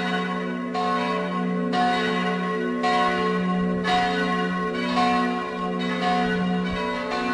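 Full peal of church bells: several swinging bells of different pitches striking in turn, about once a second, their tones overlapping and ringing on.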